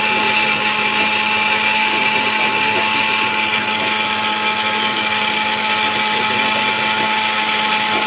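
Sharp electric mixer grinder (mixie) running steadily, grinding green chillies and water into a paste. The motor gives an unbroken hum with a steady whine.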